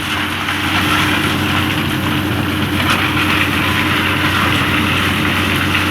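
Diesel engine of a Komatsu PC200 excavator running steadily, an even hum with no change in pitch or load.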